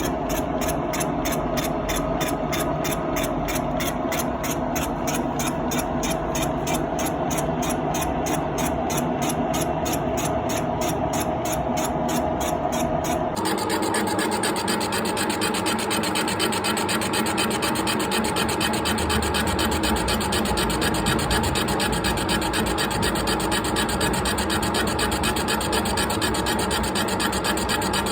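Milling machine face-milling the deck of a Volkswagen 1.9 engine block: a steady rasping cut with a fast, even rhythm from the cutter, changing in tone about halfway through. The deck is being skimmed flat because the block is warped.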